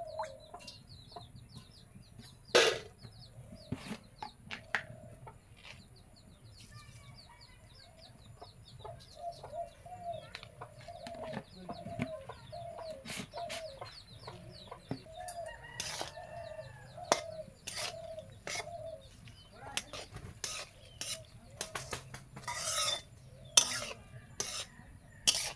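Chickens clucking in long runs of short repeated calls, with small birds chirping now and then. A sharp knock comes a few seconds in, and near the end a metal spatula scrapes and knocks against the metal kadai as the food is stirred.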